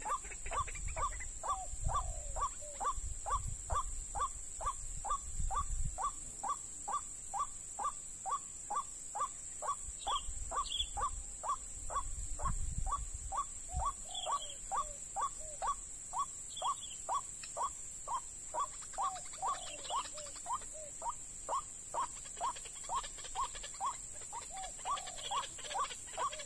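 White-breasted waterhen call played on a lure speaker: a fast, even series of short rising notes, about two or three a second, with no let-up. A steady high hiss sits above it, and a low rumble comes and goes in the first few seconds and again around twelve seconds in.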